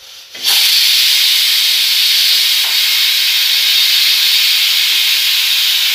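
Pressure cooker whistle: steam escaping under the weight valve on the lid in a loud, steady hiss that starts about half a second in. It is one of the 5 to 6 whistles counted to cook the meat soft.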